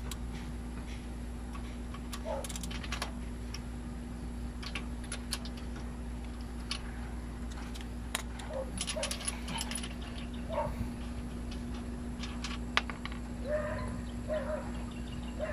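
Scattered light metallic clicks and clinks of a socket ratchet working a spindle nut off a rear wheel hub, and of the nut, lock and tools being handled.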